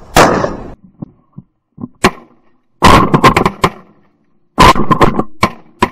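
Shotgun shots fired at a flock of ducks in flight: one loud shot right at the start with a ringing tail, another about two seconds in, then two quick clusters of several shots each.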